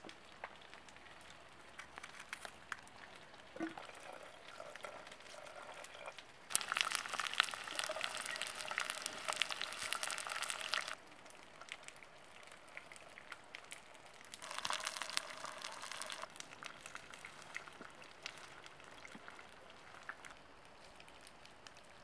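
Rain pattering and dripping on wet surfaces, a dense crackle of fine drops, heavier in two stretches of a few seconds each, about six seconds in and again near fifteen seconds.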